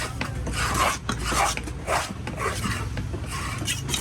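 A knife scraping and cutting on a fish in repeated rasping strokes, about five in a few seconds, with sharp clicks between them. A steady low hum runs underneath.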